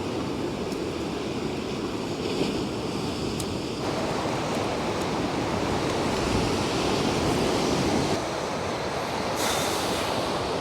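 Sea surf washing on the shore, a steady rushing noise mixed with wind.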